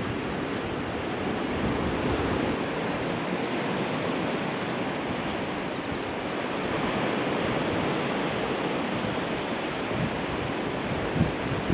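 Steady rush of sea waves with wind buffeting the microphone, and a brief bump near the end.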